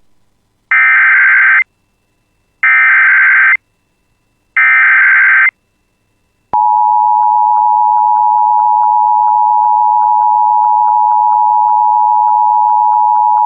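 Emergency Alert System tones: three short warbling bursts of SAME header data, each about a second long, then a steady two-note EAS attention signal starting about halfway through. Together they announce a new warning.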